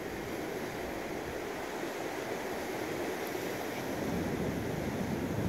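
Steady wash of surf along a rocky shore mixed with wind on the microphone, an even noise with no distinct events.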